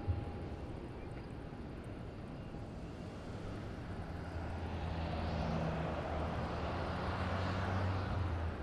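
Airbus A321neo's Pratt & Whitney PW1100G geared turbofan engines on final approach: a steady jet rumble and hiss that grows louder from about halfway through as the airliner comes nearer.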